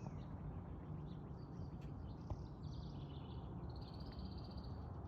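Quiet outdoor garden ambience: a steady low rumble with faint, scattered bird chirps high up, and a short pulsing trill about four seconds in.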